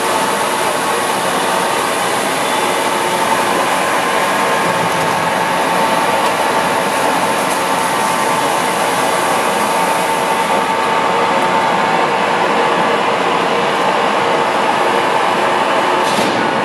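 A Blanchard #27-48 48-inch vertical-spindle rotary surface grinder running: a loud, steady machine hum with a constant whine through it.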